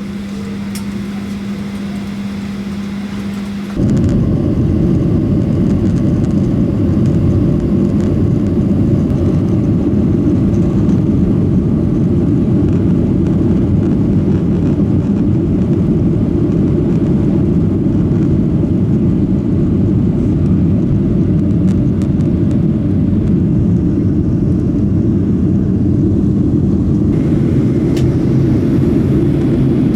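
Cabin noise aboard a Boeing 737 airliner: a steady engine hum with a held low tone, then about four seconds in the sound jumps suddenly to a much louder, steady low rumble of the jet engines at high power.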